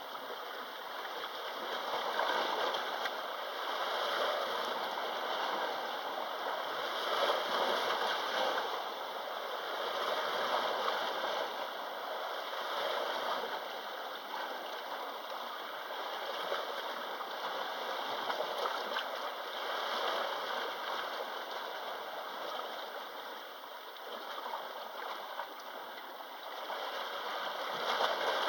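Sea waves washing against the shore: a steady rushing hiss of water that swells and ebbs every few seconds.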